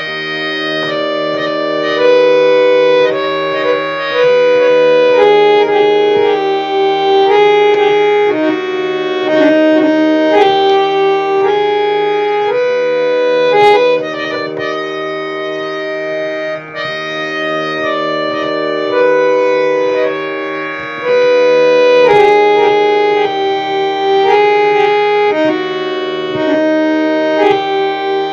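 Harmonium playing a medium-tempo teentaal lehra, the repeating 16-beat melody in raag Jogkauns used as tabla practice accompaniment. Held reed notes step up and down over a steady low drone.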